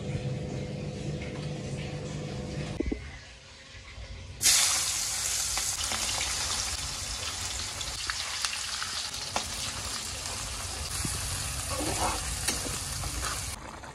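Hot oil in a kadai sizzling loudly as sliced onions and minced aromatics hit it, then stirred with a few light spatula taps. The sizzle starts suddenly after a few seconds of steady low hum and cuts off shortly before the end.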